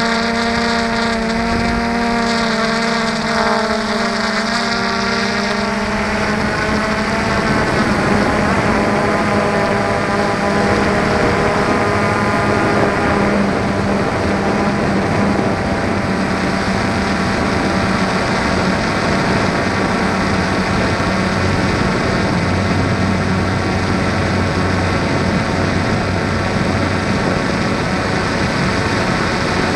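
A camera drone's motors and propellers hum loudly, heard close up from its onboard camera. The pitch holds steady for about the first six seconds, then wavers and turns rougher for the rest of the flight.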